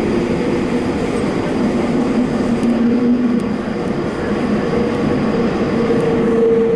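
Subway train running along the line, heard from inside its rear cab: a steady rumble of wheels on rail with a couple of held hums.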